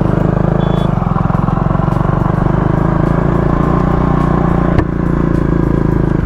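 Motorcycle engine running at steady revs while riding, with a single sharp click about five seconds in.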